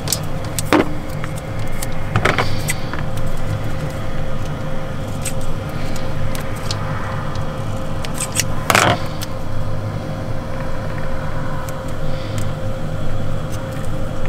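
Scissors snipping and hands handling a red electrical wire, with scattered small clicks and a few louder cutting strokes, the loudest a little under nine seconds in. A steady low hum with a faint steady tone runs underneath.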